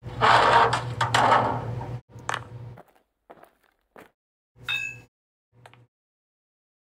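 Door sound effects: a loud rushing noise for about two seconds, then several short knocks and clicks, one near the middle with a brief squeak.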